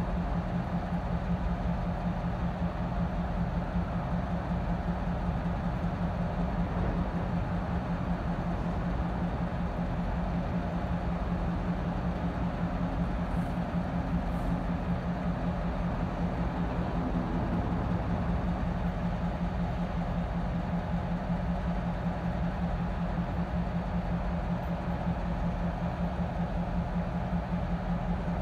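Utah Railway GP38-3 diesel-electric locomotives, with EMD two-stroke diesel engines, idling with a steady low hum.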